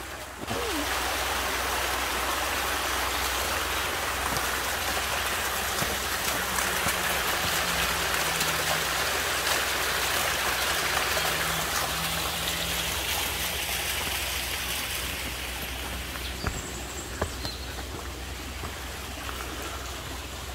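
The Pulsbach mountain brook flowing: a steady hiss of running water that starts abruptly about half a second in and grows quieter in the last few seconds. A few faint knocks come near the end.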